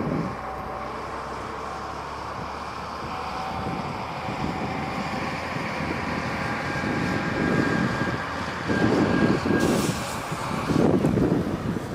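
Distant coal train hauled by a JS-class steam locomotive, a steady far-off running rumble. Wind buffets the microphone in gusts over the second half, and these are the loudest sounds.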